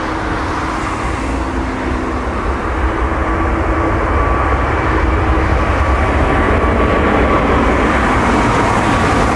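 Four-engined Airbus A380 jetliner's engines at takeoff power as it climbs out overhead: a steady deep rumble that grows slightly louder through the second half, with a faint thin whine over it.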